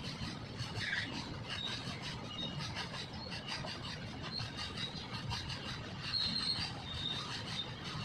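Covered freight wagons of a long goods train rolling past on the rails, a steady rumble with faint high wheel squeals, the clearest about six seconds in.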